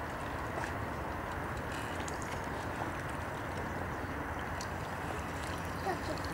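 Steady outdoor wind noise buffeting the microphone, with a few faint ticks.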